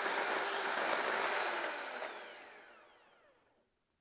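Electric hand mixer whipping heavy cream in a stainless steel bowl, its motor running steadily, then switched off about one and a half seconds in, its whine falling in pitch as the motor winds down to silence. The cream has reached stiff peaks.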